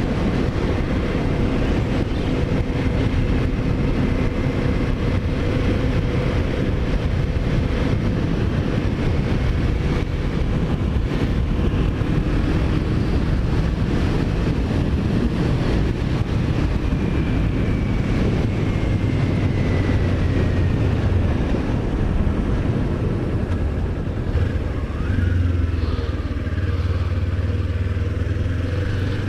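Kawasaki Ninja 400's parallel-twin engine running as the motorcycle rides along, steady and loud under the rush of riding noise. The engine pitch falls away around the middle and climbs again near the end.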